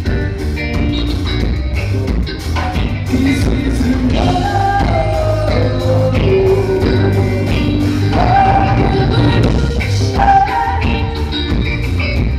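Live band playing amplified: a woman singing a melody into a microphone over electric guitar, bass guitar and a drum kit keeping a steady beat.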